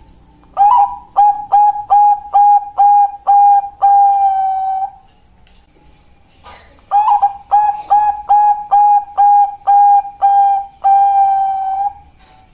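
Bangkok-line zebra dove (perkutut) singing its cooing song twice. Each phrase is a quick, even run of short coos at one pitch that ends in a longer held coo. The second phrase starts about seven seconds in.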